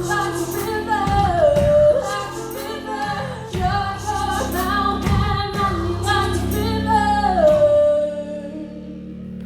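A woman singing a slow song with instrumental accompaniment, her voice gliding between held notes. Her last line ends about two seconds before the end, while a low accompanying note rings on.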